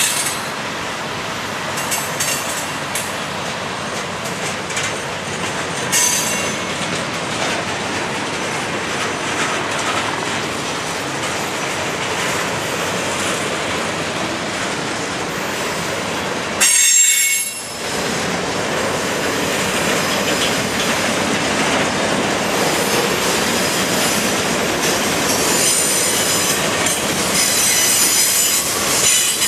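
Freight cars of a mixed freight train rolling past on steel rails: a steady rumble of wheels with clickety-clack over the rail joints and high-pitched wheel squeal that grows stronger near the end. A brief loud burst of noise comes about halfway through.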